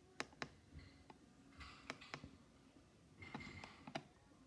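Buttons being pressed on a Midland WR120 weather radio: about half a dozen faint, sharp clicks at uneven intervals.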